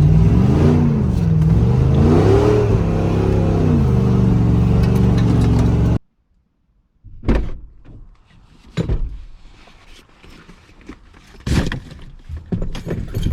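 Ford F-150 pickup engine being revved hard: it climbs and drops in pitch twice over about six seconds, then cuts off abruptly. A scattering of short knocks and thuds follows.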